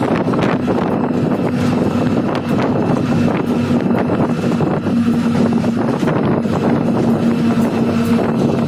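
Cab of a moving RGE-20 diesel-electric locomotive: a steady engine drone with a constant hum, mixed with wind noise and frequent sharp rattles and clicks.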